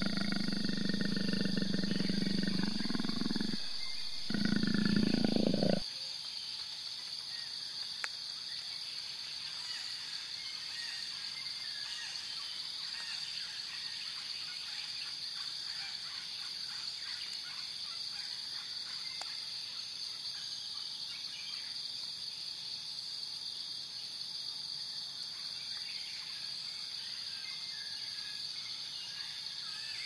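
Leopard calling: two long, low calls, the first about four seconds long and the second shorter, ending about six seconds in. After that only a steady, faint high hiss of background ambience.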